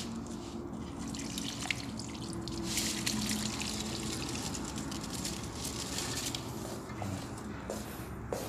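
Water being poured onto potted plants, splashing and trickling into the soil in uneven spurts, over a faint steady hum.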